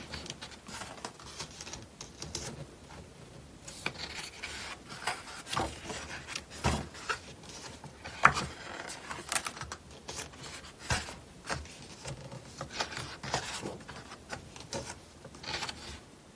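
Pages of a photo book being turned and handled: paper rubbing and rustling, with scattered light taps and clicks.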